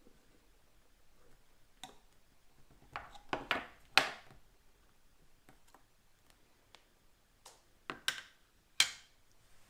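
Metal lid of a paint tin being pried off with a hand tool: sharp metallic clicks and pops as the lid is levered up around the rim, loudest about four seconds in. Another few clicks follow about eight to nine seconds in as the freed lid and tool are handled.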